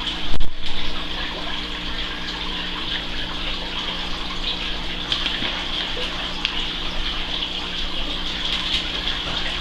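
Aquarium air bubbler and filter running: a steady gushing, bubbling water sound over a low hum, with a loud thump about half a second in.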